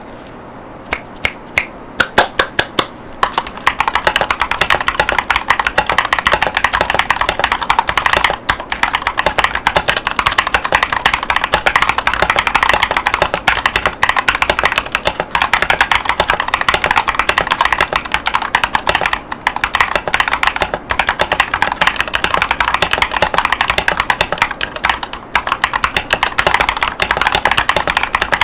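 Mechanical keyboard typing: Chosfox Voyager V2 tactile switches under PBT OEM-profile keycaps on an Akko 5108S. A few separate keystrokes come first, then fast continuous typing sets in after about three seconds, with brief pauses now and then.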